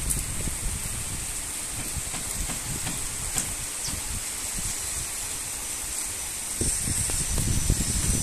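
Heavy rain falling as a steady hiss, with gusts of wind buffeting the microphone, strongest near the end.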